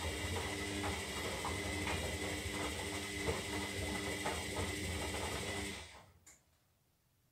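Zanussi Lindo 300 washing machine running mid-cycle: a steady motor hum with a pulsing whir and scattered clicks and knocks. It stops about six seconds in, with one click just after.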